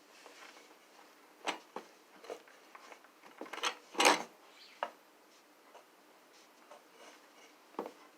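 Scattered light knocks and clicks of bird feeder parts being handled and set down, the loudest about four seconds in.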